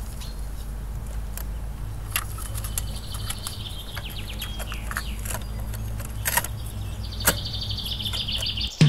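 Plastic clicks and clacks of a cassette and its case being handled and loaded into a Sony portable cassette boombox, with a louder click about seven seconds in as a key is pressed. Birds chirp over a steady low hum.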